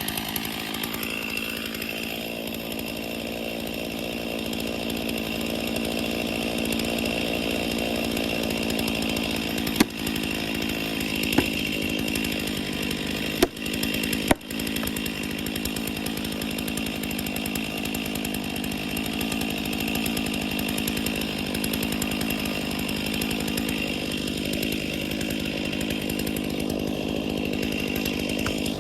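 Stihl chainsaw running at steady high speed, cutting into a cedar tree, with a few sharp clicks about a third of the way through.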